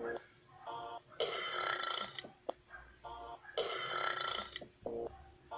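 Loud, long burps, two in a row about two and a half seconds apart, each lasting about a second, with a short, higher-pitched sound just before each.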